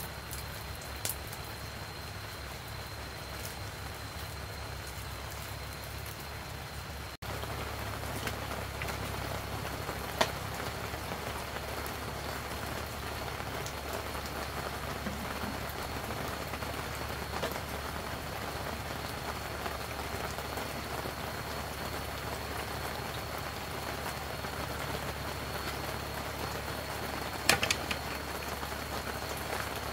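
Steady rain falling, with a few sharp taps, the loudest near the end. The rain grows a little louder after about seven seconds.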